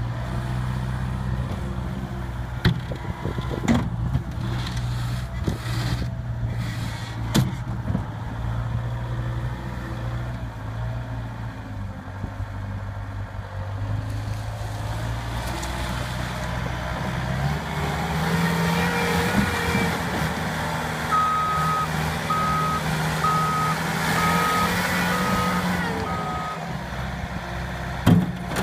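Bobcat T190 compact track loader's diesel engine running steadily with a few sharp knocks, then revving up about two-thirds of the way through. While it revs, its backup alarm beeps six times, about once a second.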